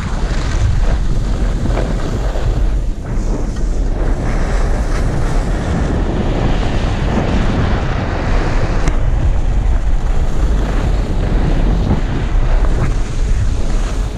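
Loud wind buffeting a body-worn action camera's microphone during a downhill ski run, over the hiss and scrape of skis on packed snow that swells and eases with the turns.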